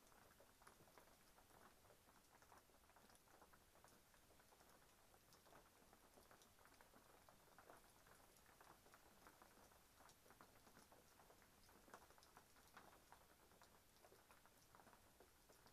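Near silence with a faint, irregular patter of raindrops.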